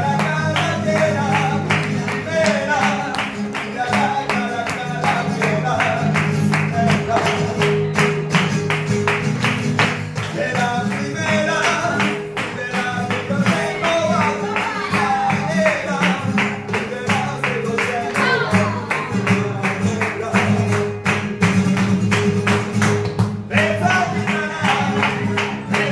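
Flamenco music: a voice singing over guitar, with a steady run of sharp percussive beats, about three a second.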